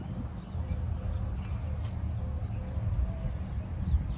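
Outdoor ambience: a steady low rumble with faint bird chirps.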